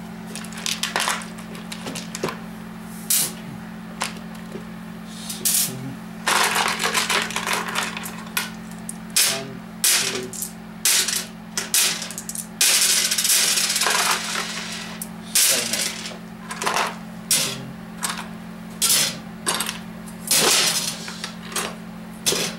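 Small steel valve-train parts (valve spring retainers and keepers) clinking and clattering as they are picked through by hand on a workbench and in a plastic parts bin. The clicks come at an irregular pace, with a couple of longer rummaging scrapes, over a steady low hum.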